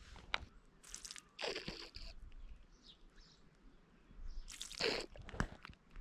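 A few faint, irregular crunches and rustles: one about a second in, a longer one just before two seconds, and another near five seconds.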